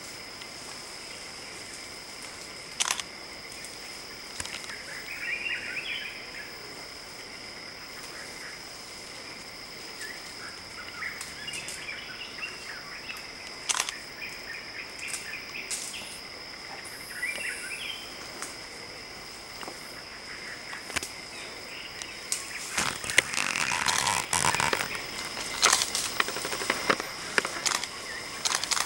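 Rainforest ambience: a steady high-pitched drone with scattered short bird chirps and a few sharp clicks. About three-quarters of the way in, a louder stretch of crackling and rustling sets in.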